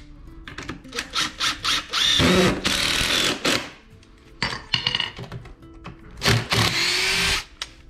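Power drill driving screws through 2x4s into stair stringers, in three runs of a second or so each, the first the longest, with short clicks and knocks before them.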